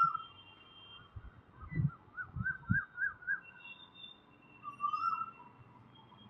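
Birds calling: a warbling run of short rising-and-falling notes, repeated, with thin steady high whistles above it. A few soft low thumps fall in the first three seconds.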